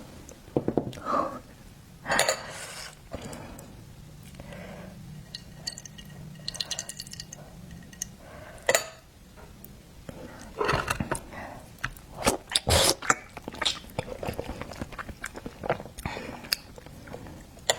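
Close-up eating sounds of a person chewing and biting seafood, with many short sharp clicks and smacks that come thicker in the second half.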